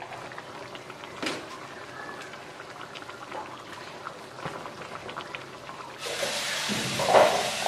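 Chicken in thick bumbu rujak sauce simmering in an aluminium wok, bubbling with many small pops. About six seconds in a louder steady hiss starts, with a few knocks near the end.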